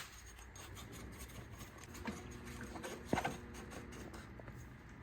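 Light clicks and taps of tools and metal parts being handled, with one sharper click about three seconds in.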